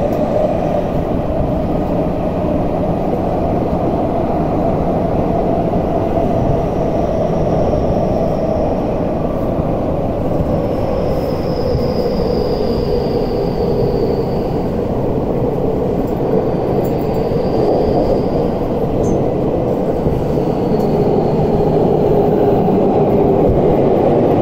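Tokyu 5050 series electric commuter train running through a subway tunnel, heard from inside the car: a steady loud rumble with a hum that slowly falls in pitch. Several faint, brief high wheel squeals come through, and the rumble grows a little louder near the end.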